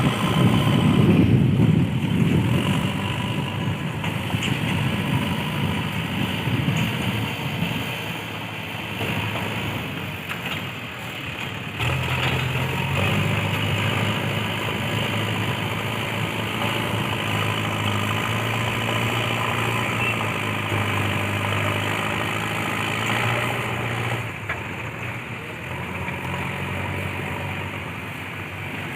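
JCB 3DX backhoe loader's diesel engine running, loudest in the first couple of seconds, then steadier. Its note steps up about twelve seconds in and drops back about twenty-four seconds in.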